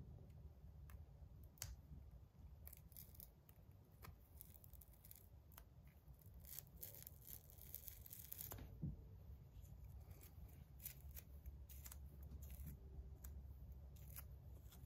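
Faint tearing and rasping of grip tape being peeled off a metal fidget slider's plate, with scattered small clicks and a busier stretch of peeling about seven to eight seconds in.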